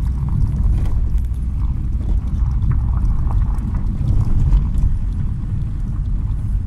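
Car driving on a gravel road, heard from inside the cabin: a steady low rumble of engine and tyres, with scattered light ticks of gravel under the wheels.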